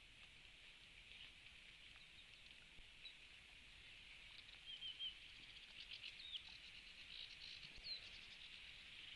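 Near silence with a steady faint high hiss. A bird gives three quick high chirps about halfway through, then a couple of single gliding notes, with light ticking and rustling near the end.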